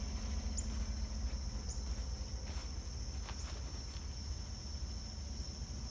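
A steady chorus of crickets trilling at one high pitch, over the low rumble of a pickup truck's engine idling.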